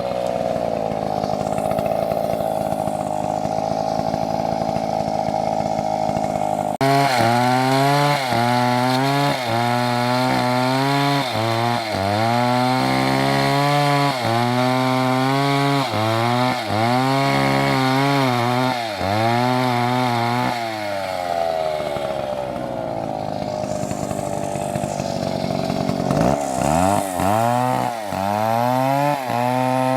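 Two-stroke chainsaw held at full throttle for about seven seconds, then revved up and down roughly once a second. It holds high speed again for several seconds later on, and is revved up and down again near the end.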